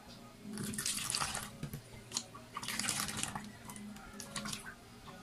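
Vinegar being poured from a plastic bottle through a plastic funnel into an empty plastic bottle, in two pours of about a second each, with a few light clicks between and after them.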